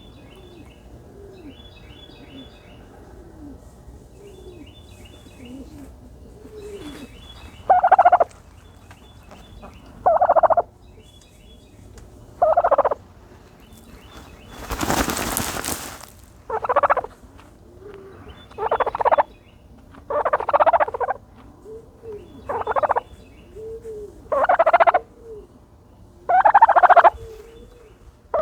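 Turkey calling while dust bathing. Soft, low purring calls come first. From about eight seconds in it gives short, loud, rapid rattling gobbles, roughly one every two seconds. Partway through there is one rushing burst of noise about a second and a half long.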